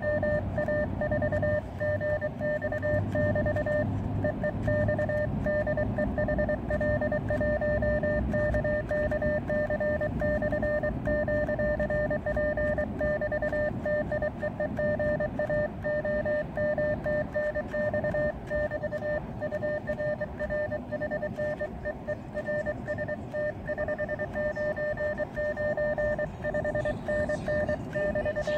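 Morse code (CW) sidetone from an Elecraft KX2 transceiver: a single steady tone switched on and off in quick dots and dashes as the operator keys a contact exchange with a paddle, with a low rumble under it.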